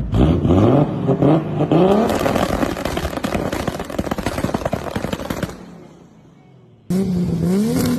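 Turbocharged Toyota Supra engine revved in quick rising blips, then a rapid, irregular string of antilag pops and crackles from the exhaust that dies away. Near the end another Supra starts revving.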